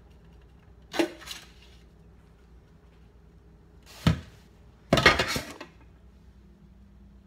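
Knife and plastic food-processor bowl clattering as chopped kale is knocked out into a serving bowl: a sharp knock about a second in, another about four seconds in, then a longer rattle of several knocks just after.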